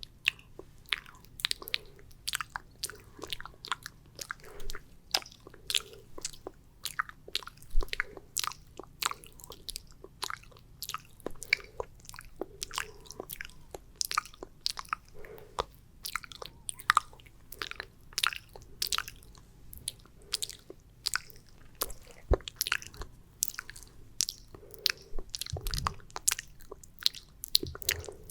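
Close-miked wet ASMR mouth sounds of 'spit painting': sticky saliva clicks and smacks in an irregular run, a few each second.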